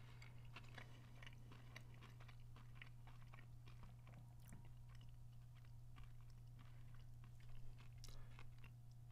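Faint chewing of a crispy air-fried breaded plant-based chicken nugget: soft irregular crunching clicks, a little louder near the end as another bite is taken, over a steady low electrical hum.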